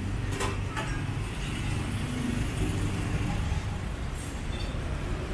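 Steady low rumble of street traffic, with two short clicks under a second in.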